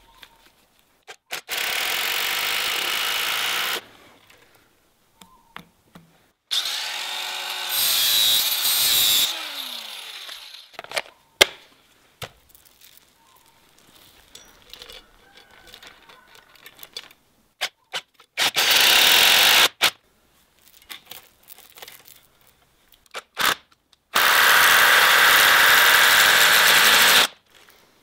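Power drill running in four bursts, driving screws into a wooden stump; the second burst changes speed and winds down with a falling whine. Sharp metallic clicks and clinks of a steel chain being handled come between the bursts.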